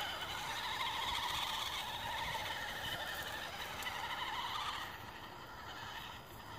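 Electric motor and gear drivetrain of an Axial Wraith RC truck whining as it drives across grass, the pitch wavering with the throttle. The whine drops away about five seconds in.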